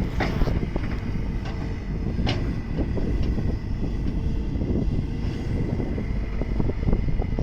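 Hydraulic excavator (backhoe) running under work, a dense low rumble with a steady high whine and a few sharp metallic clanks, the loudest about two seconds in.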